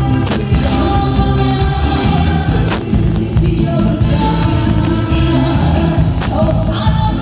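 Korean trot song performed live: a woman singing over a loud amplified backing track with a steady beat and sharp percussion hits every couple of seconds.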